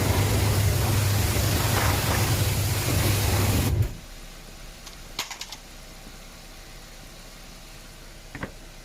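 Steam cleaner spraying, a loud hiss of the jet over the steady hum of the machine's pump, cutting off suddenly about four seconds in; a few faint clicks follow.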